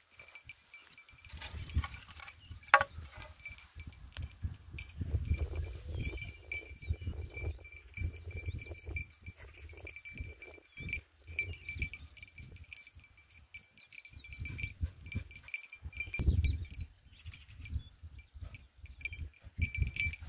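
A small bell tinkling almost without a break, over uneven low rumbling on the microphone, with one sharp knock a little under three seconds in.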